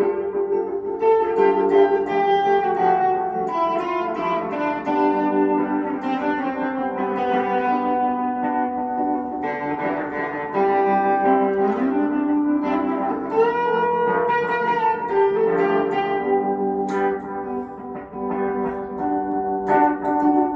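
Electric cigar box guitar played through effects, picking a melody of ringing, sustained notes, with a note sliding up in pitch about twelve seconds in.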